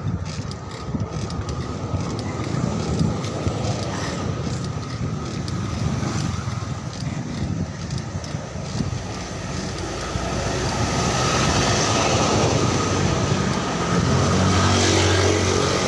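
Wind buffeting the microphone on a moving bicycle, with road noise throughout. An oncoming motor vehicle's engine rises in the last couple of seconds as it passes close by.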